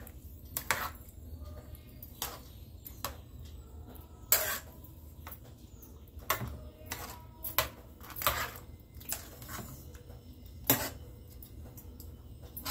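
A metal spoon stirring thick curd rice in a metal pot, clinking and scraping against the pot's side and rim in irregular knocks about once or twice a second.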